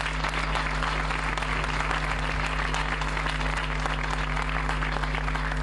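Crowd applauding: many hands clapping densely over a steady electrical mains hum from the sound system.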